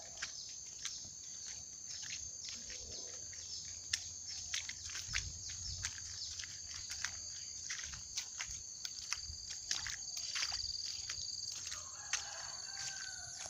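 Insects buzzing in a steady high-pitched drone, with many short, sharp chirps or clicks scattered over it.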